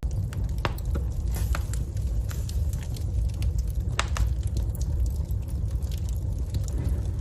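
Wood fire crackling in a fireplace, with irregular sharp pops over a steady low rumble.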